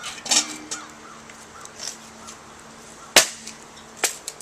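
Wood being handled on a campfire: a brief rustle near the start, then two sharp cracks, the louder one about three seconds in and another about a second later.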